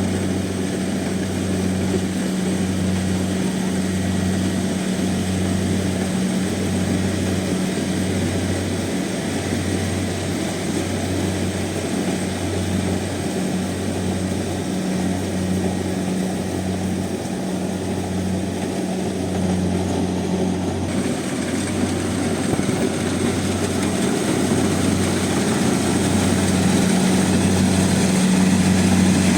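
Kubota combine harvester running steadily while harvesting rice: a steady engine and machinery hum with a low throb about once a second, growing a little louder near the end.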